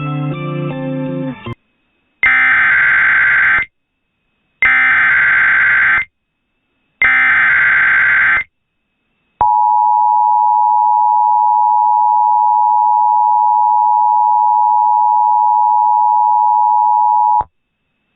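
Guitar music stops, then three bursts of Emergency Alert System SAME header data tones, each about a second and a half long, followed by the EAS two-tone attention signal (853 and 960 Hz) held for about eight seconds. This is the standard opening of an EAS alert, here leading into a severe thunderstorm warning.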